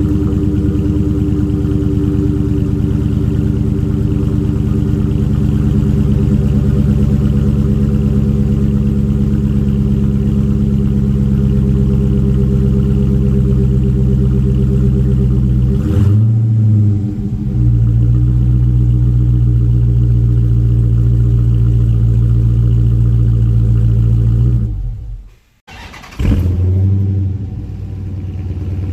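Dodge Challenger Scat Pack's 392 Hemi V8 running at a steady idle through its active exhaust. The tone shifts briefly about sixteen seconds in. Near the end the sound cuts out suddenly and comes back quieter.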